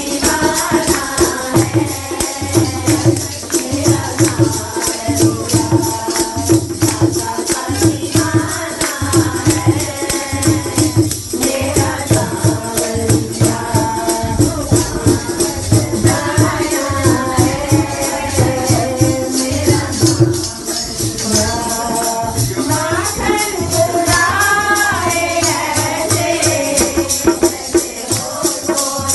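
Devotional song (bhajan) sung through a microphone and PA, over a steady drum beat and continuous jingling percussion.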